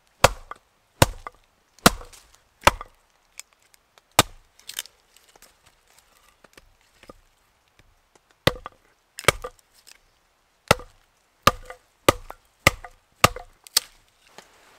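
A hatchet chopping and splitting small sticks of wood on a log chopping block: a series of sharp strikes, a pause of about three seconds midway, then a quicker run of strikes near the end.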